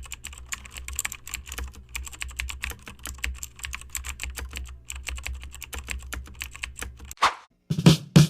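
Rapid, irregular keyboard typing, many clicks in quick succession over a steady low hum. Near the end a short whoosh, then music begins.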